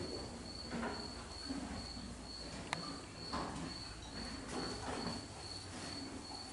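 A cricket chirping steadily, a high pulsing note repeating evenly several times a second. Soft rustles come and go, with one sharp click about a third of the way in.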